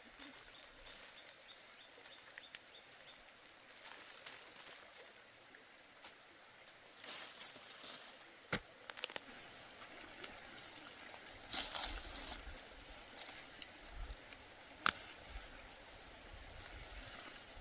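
Faint outdoor background with intermittent rustling and a few sharp knocks, two of them standing out about eight and a half and fifteen seconds in.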